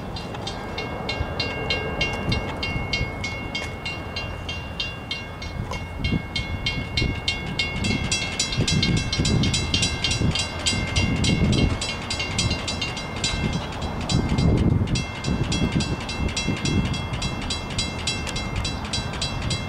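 Railroad grade-crossing warning bell ringing in rapid, even strokes, signalling an approaching train, with low rumbling swells coming in from about six seconds in.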